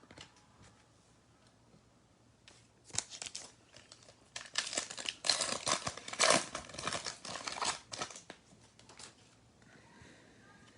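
A foil trading card pack wrapper being torn open and crinkled: irregular rustling and tearing from about three seconds in until about nine seconds in.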